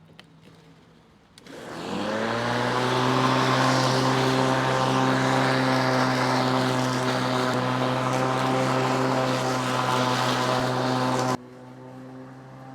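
Black & Decker MM875 electric mulching mower switched on with a click, its motor and blade spinning up over about a second to a steady, even hum. Near the end the sound suddenly drops much quieter while the same hum goes on.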